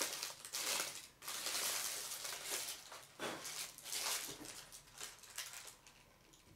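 Rustling and handling noises in irregular bursts, busiest in the first four seconds and trailing off near the end.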